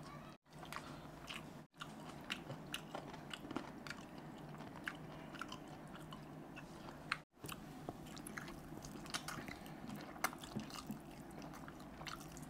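Close-miked eating: biting and chewing of gravy-dipped fried chicken leg pieces, wet mouth sounds with frequent short clicks and smacks. It is broken by three brief dropouts to silence.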